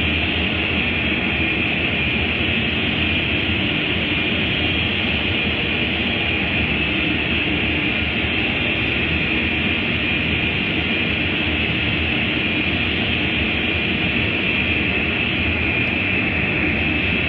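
Automatic car wash machinery running with a steady, even rushing noise.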